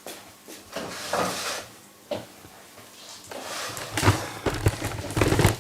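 Kitchen handling noises: scattered knocks and rustles of dishes and food items being moved about, busiest about a second in and again from about four seconds on.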